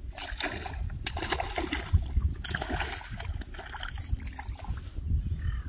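A hooked fish splashing and thrashing at the water's surface as it is played in on a rod, in repeated bursts that die down about five seconds in.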